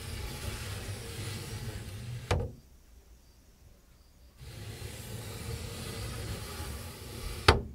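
Wood-framed paper shoji of a Japanese tea-room window sliding along its wooden groove with a rough rubbing noise, stopping with a knock about two seconds in. After a pause it slides back and stops with a sharper, louder knock near the end.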